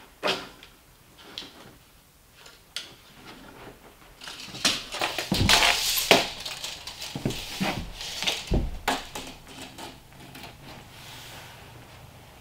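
Objects being handled and set down: scattered knocks and clatter with rustling, busiest in the middle, with a few heavier thumps.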